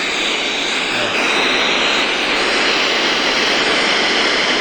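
FM radio static: a loud, steady hiss from a portable Bluetooth speaker's FM tuner that is not on a station, growing a little louder about a second in.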